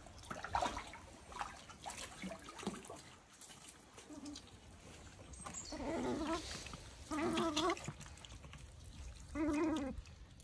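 An otter giving three drawn-out, wavering whining calls as it begs for scallop. Scattered light taps and drips come before the calls.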